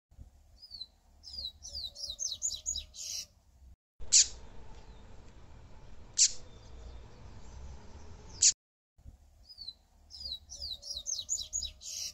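Yellow-bellied seedeater (papa-capim) singing. A song phrase of quick, high, downward-slurred notes speeds up and ends in a buzzy note, and is given twice. Between the two phrases come three single sharp, falling notes about two seconds apart over a faint hiss.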